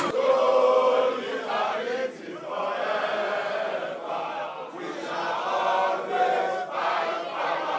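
A crowd of people chanting or singing together in unison, their voices holding long notes.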